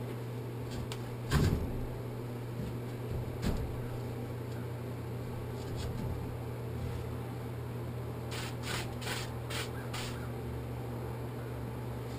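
Stones being set into place: a heavy knock about a second and a half in, a lighter knock a couple of seconds later, then a quick run of about six short scrapes near the end, over a steady low hum.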